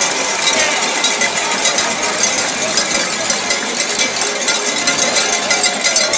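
A stadium crowd ringing many handheld cowbells, a dense, continuous clanging with no pause, with crowd shouts underneath.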